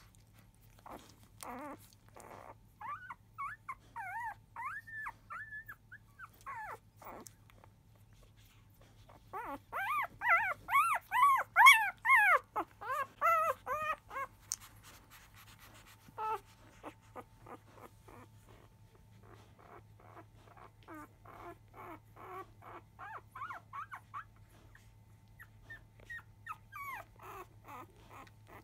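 Newborn Labrador Retriever puppies squeaking and whimpering while they jostle to nurse. About ten seconds in there is a loud run of rapid, wavering squeals: the distress cries of a puppy pinned under its mother's foreleg, which stop once it wriggles free. Softer quick squeaks follow.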